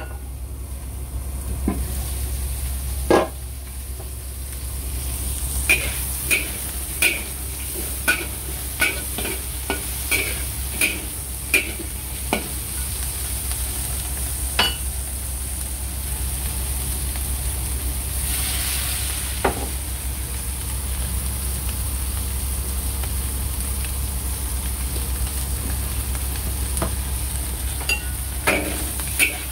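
Shrimp sizzling in a hot wok while a utensil knocks and scrapes against the pan, a run of sharp clicks about twice a second in the first half, over a steady low hum.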